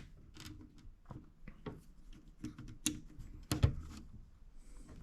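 Plastic building bricks being handled and pressed together: a scatter of light, irregular clicks and taps, with a couple of sharper clicks about three and three and a half seconds in.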